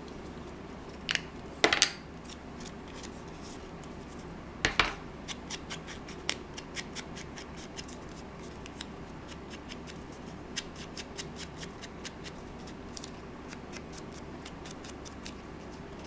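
Small crafting items handled on a desk: three sharp plastic clicks in the first five seconds as a Distress ink pad is fitted into its lid, then a long run of light, quick ticking from small hand work with paper.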